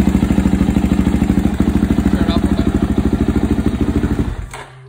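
Suzuki DR-Z400SM's single-cylinder four-stroke engine, fed by a Keihin FCR41 carburettor set two turns out on the fuel-air screw, idling steadily with even, rapid firing pulses. The engine sound cuts off near the end.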